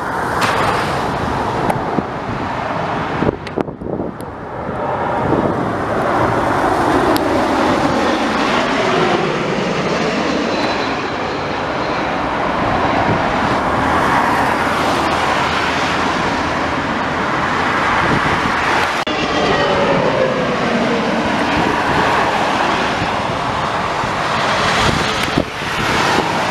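Embraer E190 twin-jet airliner with General Electric CF34 turbofans passing low on landing approach: a loud, continuous rush of jet engine noise, with a falling whine in the second half as it moves away.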